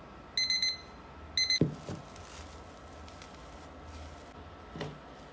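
Digital kitchen timer beeping as its countdown runs out: a quick group of high beeps, then a second group about a second later. Then plastic cling film rustles as it is pulled off a bowl, with a soft knock near the end.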